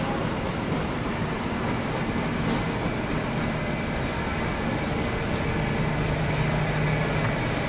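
Passenger train coaches rolling past on the rails with a steady roar of wheels on track. A thin high wheel squeal sounds at first and stops about two seconds in.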